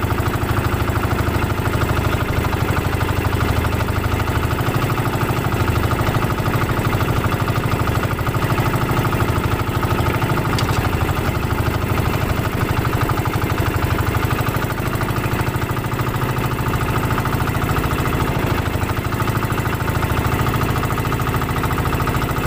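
A small outrigger fishing boat's engine running steadily under way, with a fast even beat and no change in speed.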